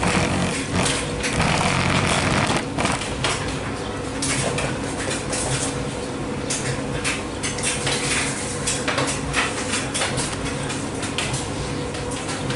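Speed Queen coin-operated front-load washer and dryer both running: a steady motor hum and low rumble from the tumbling drums, with frequent light clicks and clatters from the tumbling loads.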